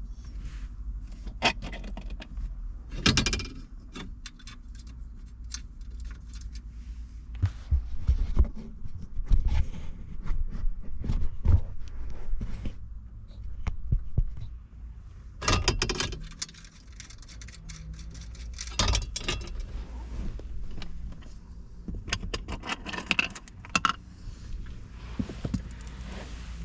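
Irregular clicks, knocks and rattles of plastic trim covers being handled and snapped into place around a car's steering column, with a metallic jingle like keys.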